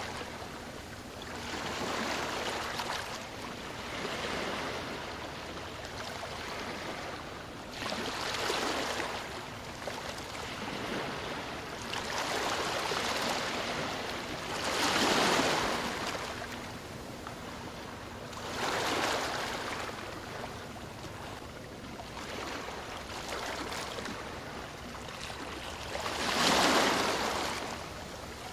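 Ocean waves breaking and washing on a shore, in irregular surges every few seconds over a steady wash of surf; the loudest breakers come about halfway through and near the end.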